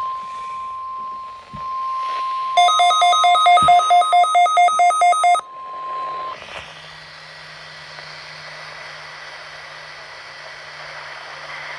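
NOAA Weather Radio warning alarm tone, a steady 1050 Hz tone that marks the start of the weekly test, holding for about six seconds and then cutting off. About two and a half seconds in, a receiver's alert beeper pulses over it for about three seconds at roughly four beeps a second. After the tone stops, the open radio channel gives a low hum and hiss.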